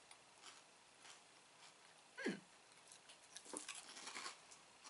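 Faint crunching of a small salted wheat cracker being chewed, the crunches coming more often in the second half. About two seconds in, a short high sound slides quickly down in pitch.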